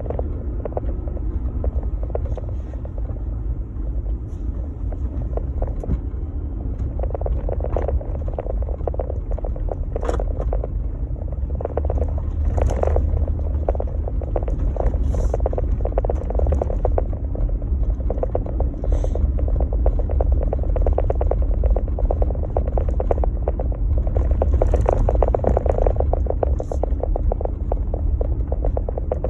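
Jeep Gladiator pickup driving over a snow-covered trail: a steady low rumble from the engine and tyres, with dense crackling over it, growing a little louder about halfway through.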